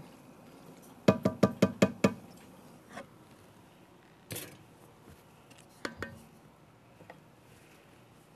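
A wooden spoon rapped about seven times in quick succession against the rim of an enamelled pot, each knock ringing briefly. Later come a few softer clunks as the heavy pot is lifted and set down on a wire rack.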